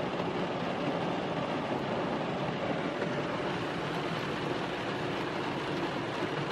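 Heavy rain falling on a car's roof and windows, heard from inside the car as a steady, dense hiss.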